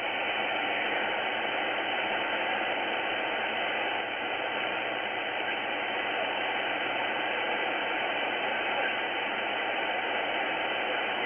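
Tecsun S-2200x shortwave receiver in lower sideband giving a steady hiss of band noise as it is tuned up through the 80-meter amateur band, with no station coming in.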